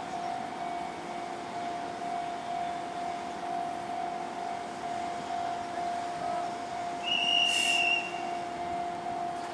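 Fujikyu 2000 series electric train, a converted ex-JR 165 series express, standing at the platform with a steady two-tone hum from its running equipment. A brief hiss with a whistle-like tone comes about seven seconds in.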